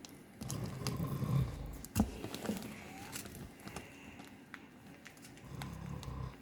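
A man snoring in his sleep: two low, rasping snores about four to five seconds apart, with a sharp click between them.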